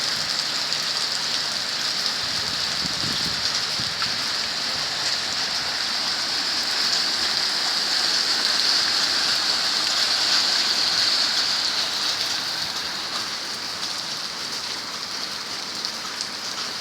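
Heavy downpour: a steady hiss of rain pouring down, swelling a little midway and easing slightly near the end.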